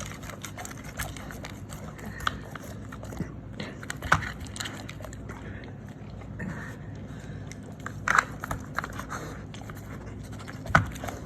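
A dog working a treat puzzle: scattered clicks, knocks and scraping as it noses and shifts the puzzle pieces, with biting sounds as it eats the treats. The loudest knocks come about four seconds in, around eight seconds, and just before the end.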